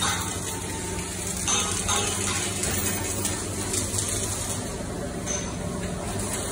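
Wire-feed (MIG) welding arc crackling and sizzling steadily on the steel grid of an excavator screen bucket, with a low steady hum underneath.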